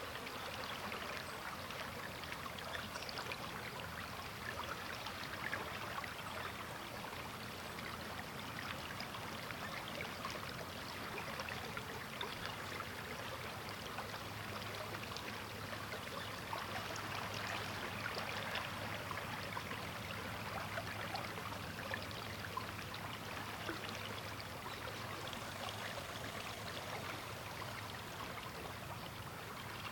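Sturgeon River water flowing steadily, a continuous rush with fine splashing and trickling.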